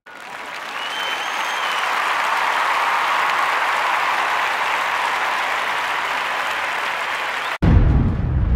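Crowd applause swelling in over the first second or two and holding steady, with a brief whistle about a second in. It cuts off suddenly near the end and a loud low rumble takes over.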